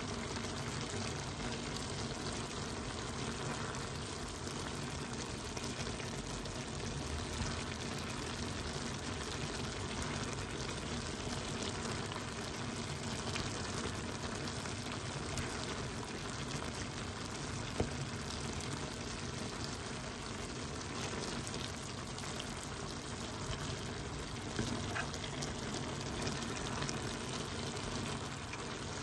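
Diced chicken breast and vegetables cooking in their juices in a pan: a steady bubbling sizzle, with one light click a little past the middle.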